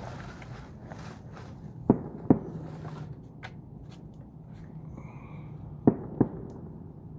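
Four sharp bangs from fireworks, in two quick pairs: one pair about two seconds in, the other about six seconds in. They could also pass for gunshots, but are taken for fireworks.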